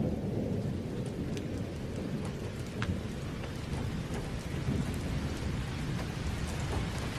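Recorded thunderstorm: steady heavy rain with scattered drop ticks, under a low rumble of thunder that is loudest at the start.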